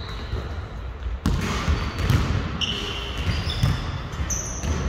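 Basketball being bounced on a hard court, with several short high squeaks of sneakers on the floor in the second half and one sharp bang a little over a second in.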